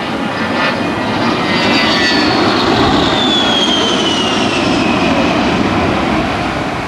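A-10 Thunderbolt II's twin TF34 turbofan engines as the jet flies past: a loud rushing roar with a high whine that falls steadily in pitch, loudest about three seconds in.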